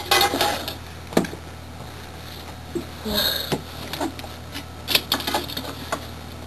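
An aluminium drink can, just knocked over by a K'nex gun bullet, clattering on a hardwood floor for under a second. This is followed by scattered light clicks and knocks.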